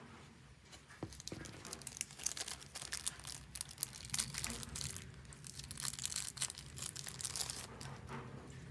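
Small clear plastic accessory bag crinkling as it is handled and opened by hand, in quick irregular bursts that start about a second in, while a tiny plastic spear is taken out of it.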